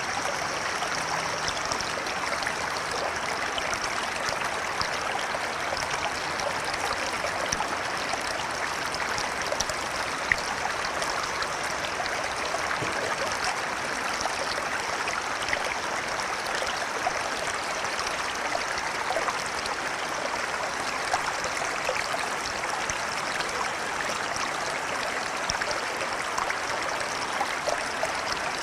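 Flowing river: a steady rush of water with many small trickling splashes.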